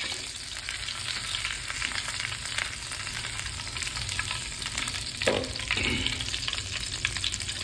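Curry leaves frying in hot coconut oil in a small pan: a steady sizzle with fine crackling as the leaves splutter, the tempering for a mutton curry.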